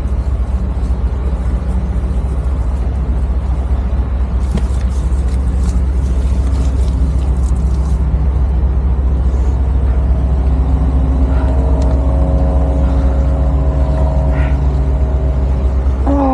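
Steady low rumble of vehicle and city traffic noise. About ten seconds in, an engine's drone of several steady pitches joins it.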